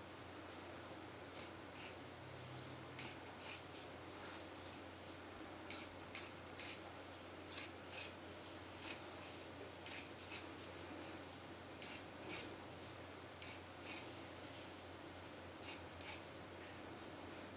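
Soft, brief swishes of T-shirt fabric strips being pulled and crossed over one another while braiding, often in pairs, about one every half second to a second.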